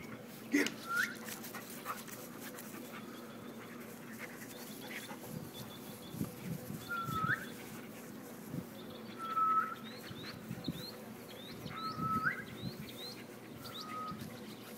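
Dobermans panting, with short rising high calls every two or three seconds and faint bird chirps in the background.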